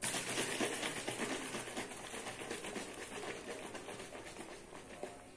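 A small plastic bottle being shaken by hand, its liquid contents sloshing with a dense rapid crackle that starts suddenly and slowly fades.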